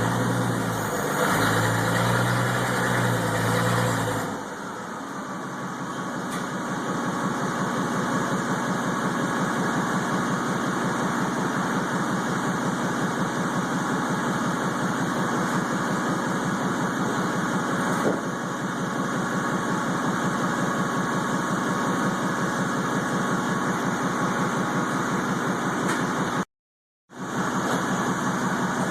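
Toyota forklift engine running: louder for the first four seconds, then settling into a steady idle with an even pulse.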